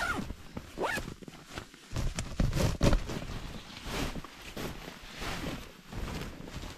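Nylon tent fabric rustling and a tent zipper running as a dome tent is taken down, in irregular scratchy bursts heard from inside the tent.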